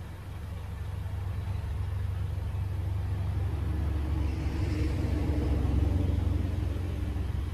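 2002 Honda CR-V's four-cylinder engine idling just after an oil change, heard from inside the cabin as a steady low rumble that grows somewhat louder over the first few seconds.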